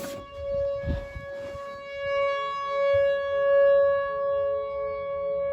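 Outdoor tornado warning siren wailing on a steady pitch, swelling louder to a peak a little past the middle and then easing off. It sounds because a tornado warning is in effect.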